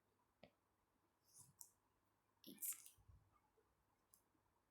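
Near silence with a few faint clicks and brief rustles, like small handling noises.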